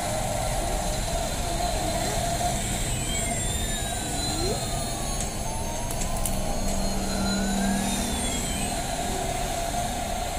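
Battery-operated light-up toy airplane playing its electronic sound effect: a siren-like wail that slowly falls and rises again over a steady electronic drone.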